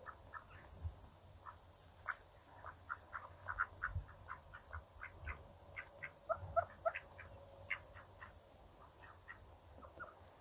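Mallards feeding on bread on the ground: an irregular run of short, soft clicking and chattering sounds, several a second, with a few dull low thumps.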